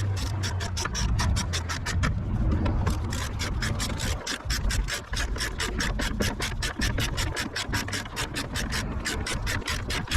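Ratchet clicking steadily at about six clicks a second while T30 Torx screws are driven in, with short pauses about two seconds in and near the end.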